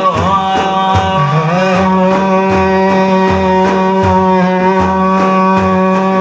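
Arabic devotional song music between sung lines: a melody note that bends briefly at first and is then held steady for several seconds, over a regular drum beat.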